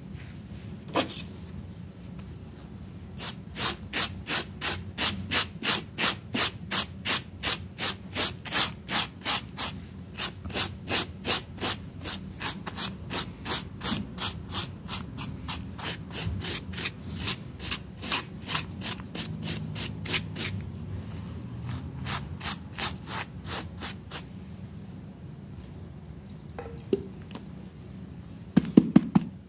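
Scrub brush scrubbing a wet, soapy rug in quick, even strokes, about three a second, stopping for a few seconds near the end. A short low knock comes just before the end.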